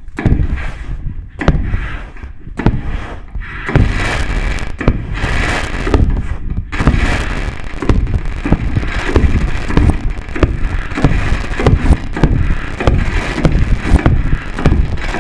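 Loud electronic noise improvisation played on a monome and Max/MSP setup: a rapid stream of crackling noise bursts and sharp hits, sparser at first and growing denser about four seconds in.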